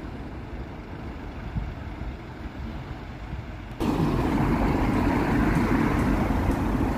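Street ambience with road traffic: a low steady rumble, jumping suddenly about four seconds in to a louder, even rushing noise.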